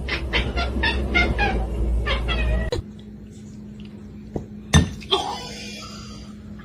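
A cat meowing in a quick run of short, repeated meows that cuts off suddenly about three seconds in. A steady low hum and one sharp click follow.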